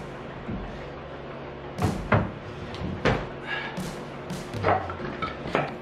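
Work boots thudding on a plywood cabinet carcass under a man's weight, then two heavy knocks close together about two seconds in as he steps down, followed by several footsteps across the shop floor.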